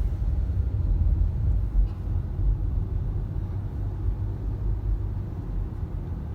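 Low, steady rumble of a car driving.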